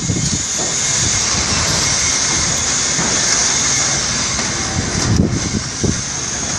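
Strong wind blowing across the microphone, a loud steady rushing with uneven low buffeting gusts. There is one short click about five seconds in.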